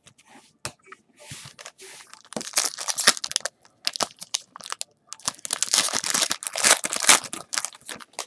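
A foil trading-card pack wrapper being torn open and crumpled, crackling and crinkling in two loud spells, the first about two and a half seconds in and a longer one from about five seconds in.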